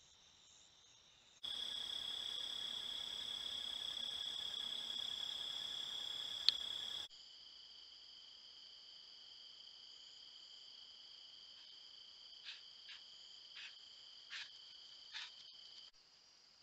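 Night insects trilling steadily at a high pitch, a continuous chorus that grows louder and then softer as the recording changes. A single sharp click comes about six seconds in, and a few short chirps sound near the end.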